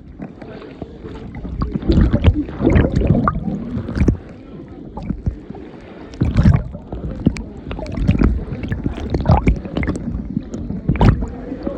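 Water splashing and sloshing in irregular bursts, mixed with sharp knocks.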